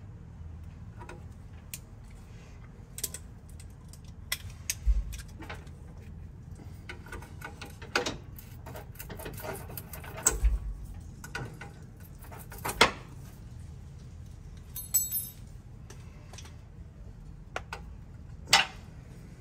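Irregular metallic clicks and clinks of a wrench on the fittings of an old rear brake line as it is loosened and worked free, with a brief ringing clink about fifteen seconds in.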